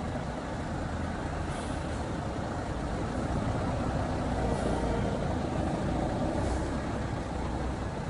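Large diesel coaches in a convoy driving past, a deep engine rumble that swells as one passes close, with about three short hisses of air from their air brakes.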